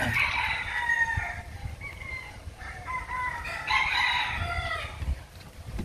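Rooster crowing twice: one long call at the start and another a little under four seconds in.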